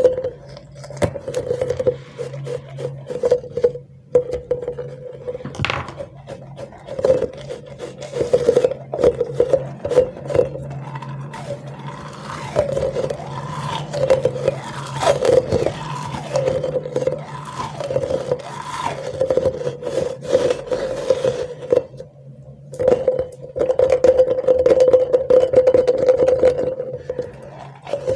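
A clear, sequin-filled rubbery squishy stress ball being squeezed and rubbed between the hands, its skin squeaking and creaking in a wavering, drawn-out tone. It is louder about halfway through and again near the end.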